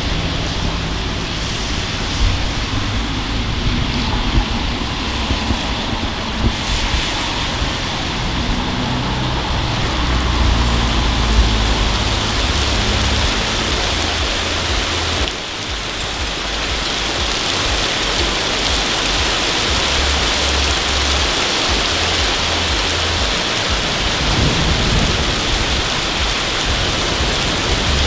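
Steady heavy rain, with low rumbles of thunder rolling in and out, the strongest about ten seconds in.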